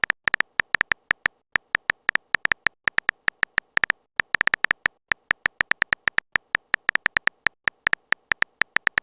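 A fast, uneven run of short electronic beeps, several a second, each one clipped off with silence in between.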